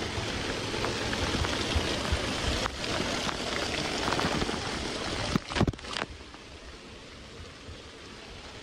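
Water rushing and splashing steadily. About five and a half seconds in there are a few sharp knocks, and after them the water sound is quieter.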